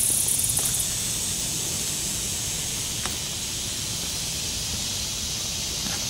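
Steady outdoor ambience: an even, high-pitched hiss with a low rumble underneath, and a faint click about three seconds in.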